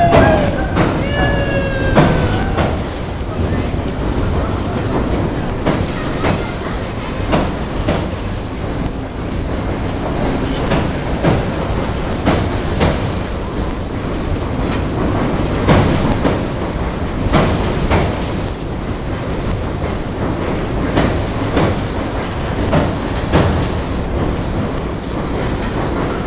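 An electric commuter train crossing a steel truss bridge, its wheels knocking over rail joints every second or so under a steady rumble. There is a brief falling squeal near the start.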